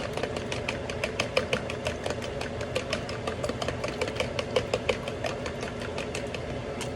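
Eggs being beaten in a bowl, the utensil clicking rapidly and evenly against the bowl's side, about six or seven strokes a second, stopping at the very end.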